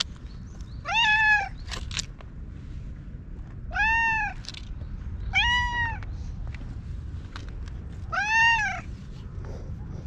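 Orange tabby cat meowing up at a person four times, each meow a short call that rises and then falls in pitch, with a second or more between them.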